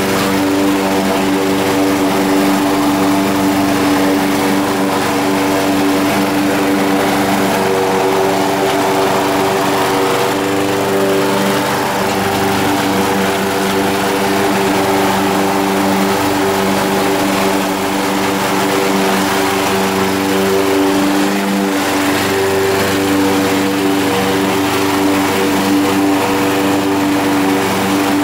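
Honda HR194 push lawn mower's engine running steadily at full throttle while mowing grass.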